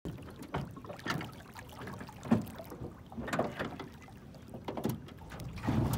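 Lake water lapping and splashing against the hull of a small john boat, with several soft splashes at irregular intervals.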